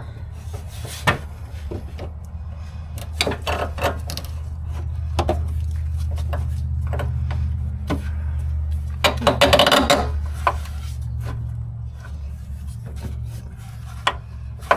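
Rubbing, scraping and light knocking of car parts being worked into place by hand, over a steady low hum. There are scattered clicks throughout, and a louder scrape about nine to ten seconds in.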